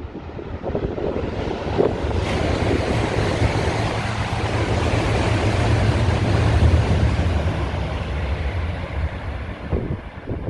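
E7-series Shinkansen passing through the station at speed without stopping. A rush of air and rolling noise builds from about two seconds in, is loudest around the middle and fades near the end.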